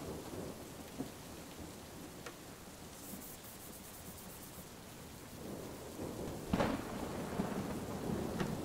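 Steady rain with a thunderstorm, the thunder swelling into a louder rumble about two thirds of the way in.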